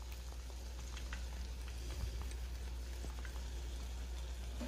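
Faint steady sizzling with scattered small crackles from hot chicken legs in an air fryer basket, partway through cooking, over a steady low hum.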